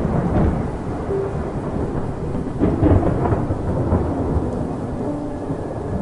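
Thunder rumbling through a rainstorm, the rumble swelling to a louder roll about three seconds in.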